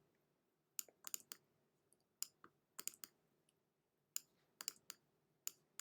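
Computer mouse clicking, about a dozen short sharp clicks in small irregular clusters, as a retouching brush is dabbed over a photo.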